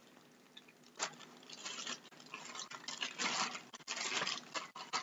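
Packaging rustling and crinkling in irregular bursts as a rolled trading-card playmat is handled and unrolled, starting about a second in, with a couple of faint clicks.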